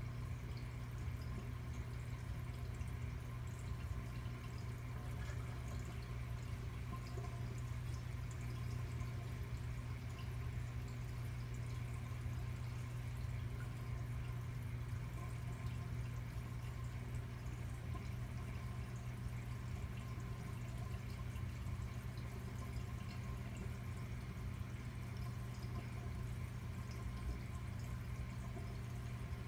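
Reef aquarium equipment running: a steady low pump hum with water trickling and dripping. One part of the hum changes pitch slightly about eighteen seconds in.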